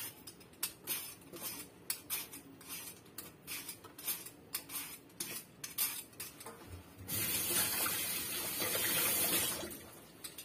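Vegetable peeler scraping the skin off a carrot in short quick strokes, about two to three a second. About seven seconds in, a kitchen tap runs for a couple of seconds, then shuts off.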